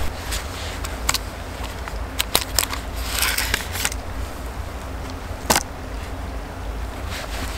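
Sharp clicks and knocks of a steel knife against split wooden kindling sticks, with a short scraping of blade on wood about three seconds in and the loudest knock about two-thirds of the way through. A steady low wind rumble sits on the microphone underneath.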